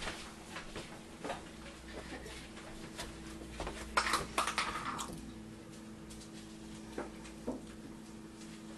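Scattered light clicks and knocks of kitchen handling, busiest about four to five seconds in, over a faint steady hum.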